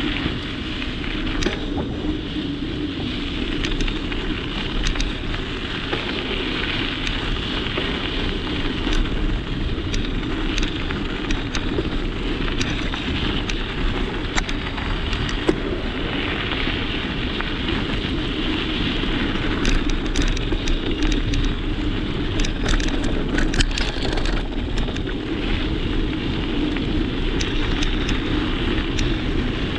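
Bicycle tyres rolling over a rough gravel road, picked up by a camera on the handlebar: a steady crunching rumble with scattered sharp clicks and rattles from bumps, thicker about two-thirds of the way through.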